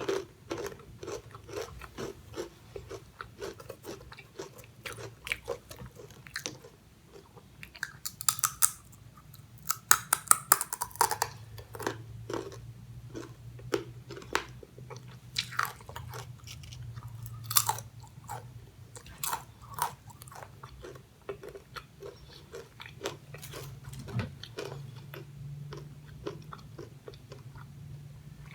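Close-miked crunching and chewing of crispy fried snack chips: a dense run of sharp, irregular crunches with louder bites now and then.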